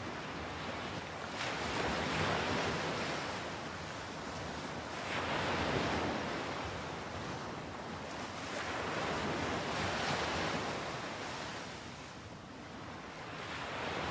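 Small waves breaking and washing up the beach. The hiss of the surf swells and fades about every four seconds.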